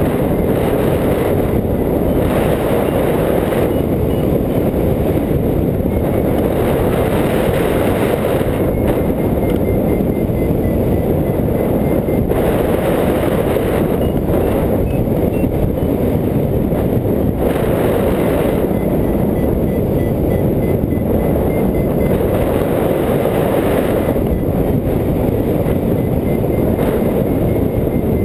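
Wind rushing over the microphone of a hang glider in flight, a steady loud rumble that swells and eases in gusts.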